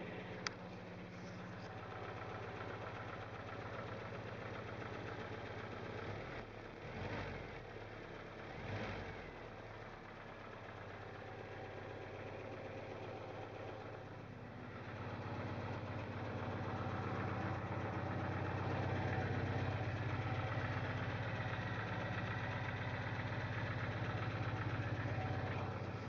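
MGB's 1.8-litre B-series four-cylinder engine idling, with a deeper clacking at tickover that the owner suspects comes from the cam drive, perhaps a cam follower, or else the distributor. The engine sound grows louder about halfway through.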